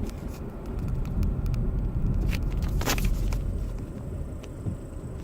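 Ford Focus III 2.0 automatic on the move, with a steady low road rumble and scattered short knocks, the loudest about three seconds in: the knock from the front end that the owner is showing.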